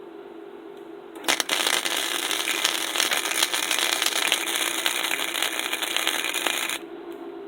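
Arc welding on scrap steel: a dense, steady crackle and sizzle that starts about a second in, holds for about five seconds and stops abruptly. A steady low hum lies underneath throughout.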